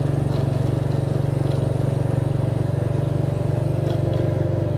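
Motorcycle engine running steadily at an even speed while the bike is ridden, a dense, rapid low drone with no change in pitch.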